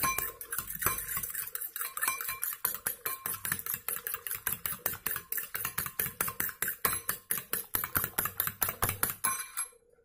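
Metal fork beating eggs in a ceramic bowl: a rapid, steady clicking of the fork against the bowl that stops near the end.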